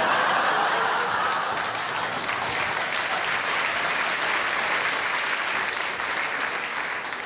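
Theatre audience applauding and laughing after a punchline; dense clapping that holds steady and eases off slightly near the end.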